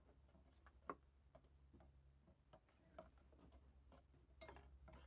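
Faint, scattered clinks of a metal spoon against a metal cooking pot while instant noodles are stirred, over a low steady hum.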